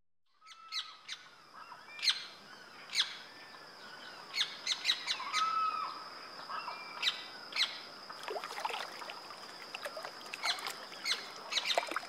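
Swamp ambience fading in: many birds chirping and calling in short sharp notes, some rising and falling, over a steady high-pitched tone.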